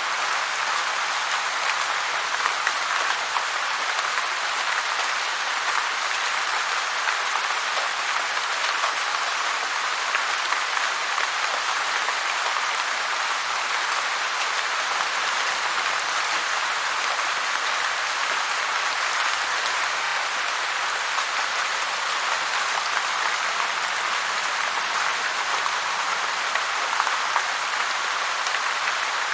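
Heavy rain falling steadily in a dense, even patter with no change.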